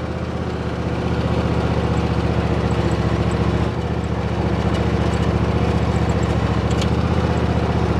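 Ferris zero-turn riding mower's engine running steadily as the mower is driven across the lawn, with a slight dip in level just under four seconds in.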